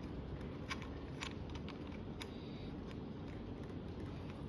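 A few faint, irregular clicks and taps of a washer being handled and seated against the clamp of an adjustable handlebar stem, over a steady low room hum.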